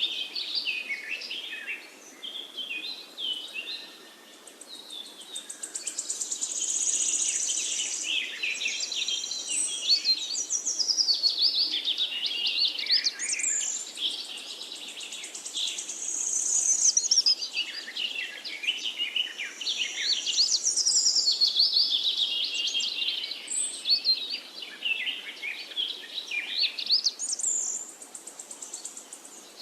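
Several forest birds chirping and singing together in quick, overlapping high calls and trills, over a faint steady rush of river water.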